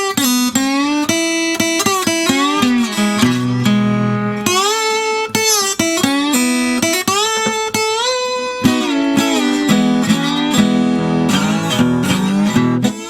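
Flat-top acoustic guitar played lap-style with a stainless steel tone bar: a blues slide passage of plucked notes that glide up and down between pitches, over steady low bass notes.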